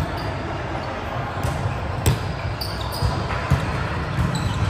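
Volleyballs being struck and bouncing on a hard gym floor: several sharp smacks a half-second to a second apart, echoing in a large hall. Short high squeaks and a steady background murmur of players run underneath.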